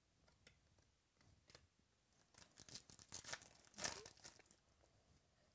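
Foil trading-card pack wrapper torn open and crinkled by hand. It is loudest between about two and a half and four seconds in, after a few light clicks of cards being handled.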